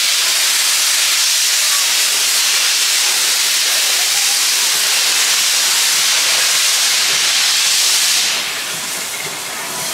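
JR East Class C61 steam locomotive (C61-20) venting steam: a loud, steady hiss that eases off about eight seconds in.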